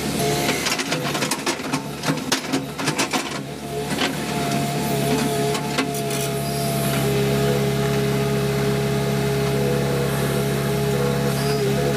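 JCB 3DX backhoe loader's diesel engine running steadily under hydraulic work, with a steady whine over it. A clatter of sharp knocks in the first four seconds as the backhoe bucket works the broken asphalt and rubble in the trench.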